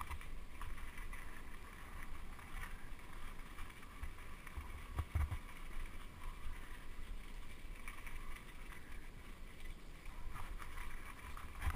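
Bicycle rolling over a rough village lane: a low rumble with wind on the camera microphone and small rattles, and one stronger thump a little after five seconds.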